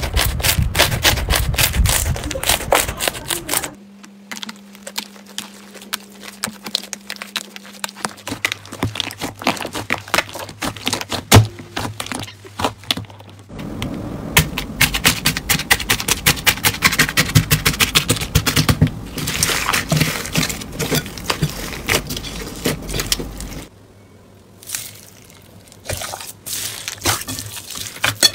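Slime being squeezed and poked by hand, making dense crackling and popping clicks, in a series of short clips that change abruptly every few seconds.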